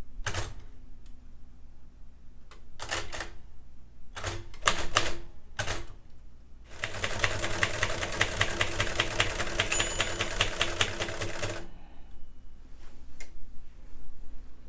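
1947 Royal Quiet DeLuxe manual typewriter's mechanism clacking: a few separate strokes, then a fast, even run of clicks lasting about five seconds.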